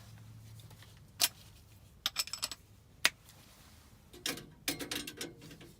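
Scattered sharp metal clicks and light rattles as a nut driver works the screw holding a gas furnace's loose flame sensor, to take the sensor out. A cluster of clicks comes about two seconds in and another near the end, over a faint low hum.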